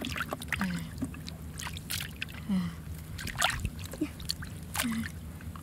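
Hands working through mud and shallow muddy water, with irregular wet splashes, sloshes and squelches as the mud is scooped and stirred.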